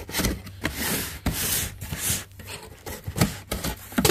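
Box cutter drawn along the packing tape of a cardboard shipping box in several short strokes, then cardboard flaps creaking and knocking as they are pulled open near the end.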